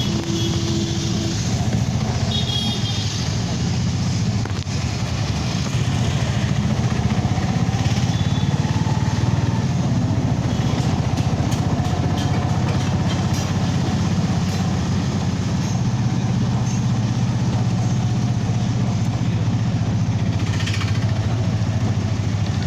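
A vehicle's engine running steadily while driving in traffic, with a brief higher tone near the start.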